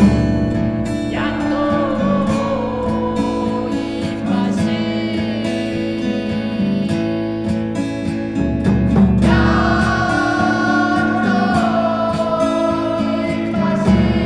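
A passage of a Hakka folk-rock song without lyrics: strummed and plucked acoustic strings keep up a steady chordal rhythm. A sliding, wavering lead melody comes in about a second in and again about nine seconds in.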